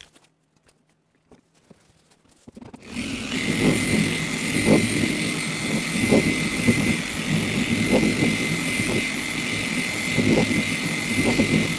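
A few faint handling clicks, then about three seconds in an electric car polisher starts and runs steadily with a high motor whine, its pad working one-step polishing compound into the paint on the second pass.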